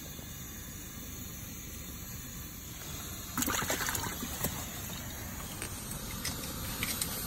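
An orange plastic ice-fishing box being handled as a caught fish is put into it, with a short clatter of knocks about three and a half seconds in and a few lighter clicks near the end, over a steady background hiss.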